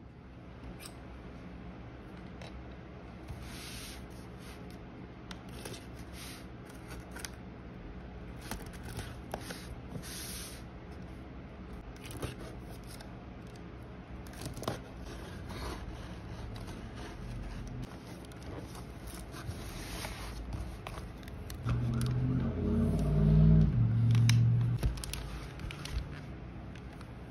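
Cardboard shipping box being opened: packing tape scraped and slit with a pointed tool, with scattered scratchy scrapes and small clicks. About three-quarters of the way through comes a louder stretch of knocks and rustling as the cardboard and plastic-wrapped packaging is handled.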